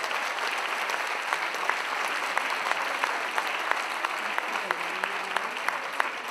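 Audience applauding steadily, many hands clapping at once at the close of a talk.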